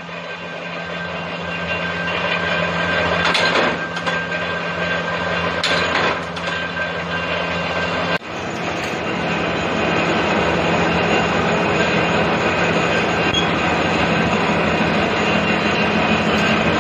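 Sheet-metal workshop machinery running steadily: a continuous hum and rattling clatter, with a few sharp metallic clanks in the first half and a brief drop about eight seconds in.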